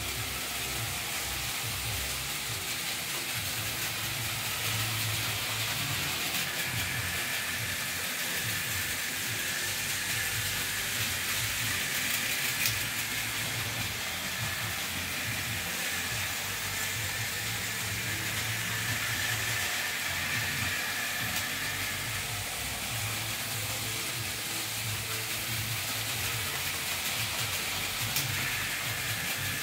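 Märklin H0 model trains running on metal track: a steady whirring hiss of wheels and motors with a faint high whine.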